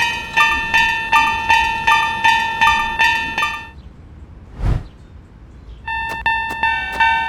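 Railroad crossing warning bell dinging in a steady rapid rhythm, about three strikes a second. It stops a little after three seconds in, a short whoosh follows, and the dinging starts again about six seconds in.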